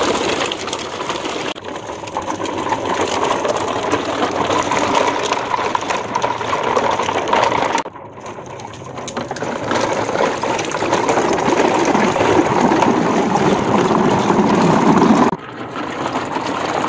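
Plastic toy truck and trailers rolling over rough wet ground, a continuous rattling clatter from the plastic wheels and bodies. It dips sharply about 1.5, 8 and 15 seconds in.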